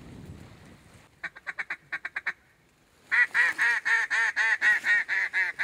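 Duck call blown by a hunter: a quick run of short clucking notes about a second in, then after a brief pause a long, loud series of quacks, about five a second.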